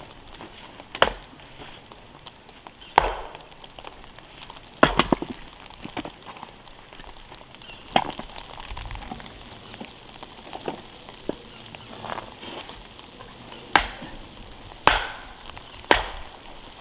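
Hatchet chopping wood on a chopping block: about ten sharp, separate strikes at irregular gaps of one to two seconds.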